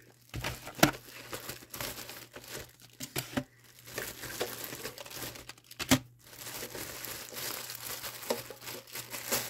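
Packaging on a watercolour paint palette being crinkled and torn open by hand, with a couple of sharp clicks along the way.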